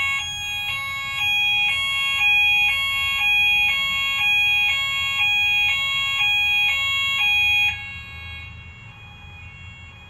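Fire alarm sounders going off in alarm, set off by the test of an Apollo manual call point: a loud two-tone alarm switching pitch about twice a second. It cuts off suddenly about eight seconds in, leaving a low hum.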